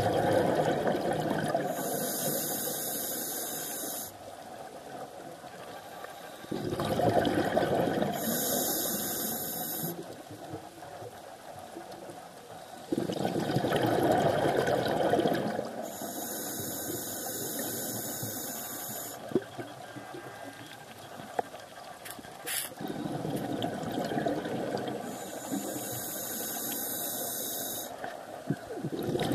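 Scuba regulator breathing heard underwater: rushes of exhaled bubbles come every several seconds. Between them, the inhaled air through the regulator makes a high hiss.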